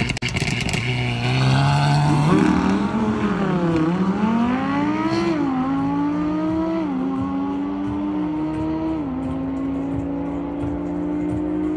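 A tuned Skoda Octavia 1.8 TSI's engine launches hard off the drag-strip line and accelerates away. Its pitch climbs and falls back at each of several quick upshifts, the shifts spacing out as the car pulls down the strip. A few sharp clicks sound right at the start.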